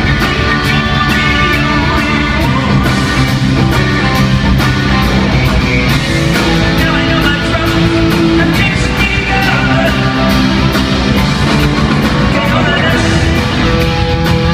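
Rock band playing live, an electric guitar prominent over bass and a drum kit keeping a steady cymbal beat.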